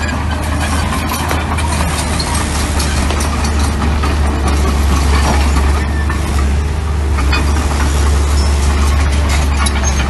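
Mini bulldozer's diesel engine running steadily with a strong low hum, with scattered clinks and clatter over it.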